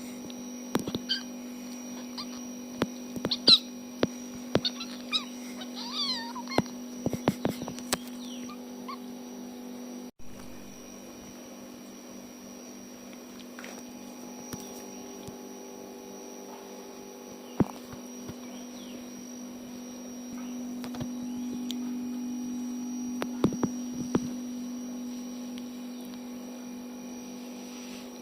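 Tiny kitten giving short, high squeaking mews while play-fighting, with sharp scuffling clicks and knocks. The squeaks and clicks crowd the first third, then thin out to a few knocks over a steady low hum.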